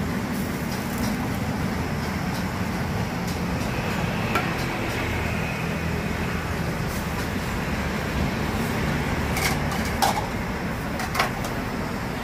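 Steady roar of gas burners under metal saucepans, with street traffic noise behind, and a few short metal clinks of a ladle against a saucepan, the clearest near the end.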